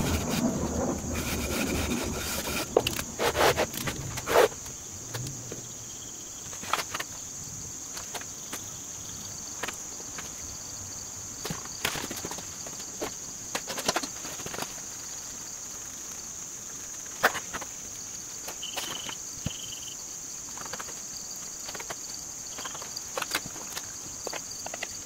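A wooden board scraping across packed casting sand in a wooden flask for the first few seconds, then scattered light knocks of wooden flask parts being handled. Insects keep up a steady high-pitched drone throughout.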